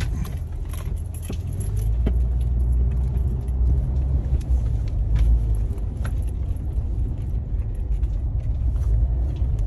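2001 Jeep Cherokee's 4.0-litre straight-six and drivetrain in four-wheel-drive low range, heard from inside the cabin while crawling over loose gravel: a steady low rumble, a little louder from about two seconds in, with scattered light clicks and rattles.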